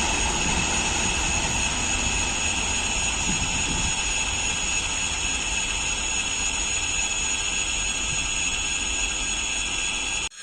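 A train running past on the line: steady rumble and rail noise with a high, steady whine over it, the low rumble easing after a few seconds. It cuts off abruptly near the end.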